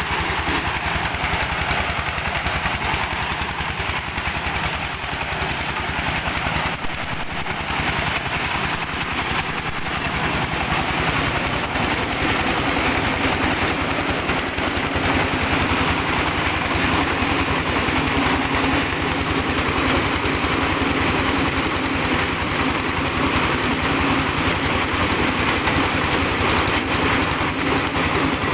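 Diesel-driven mobile corn sheller running steadily while it shells maize cobs. The engine and threshing drum make a loud, even beat of rapid pulses.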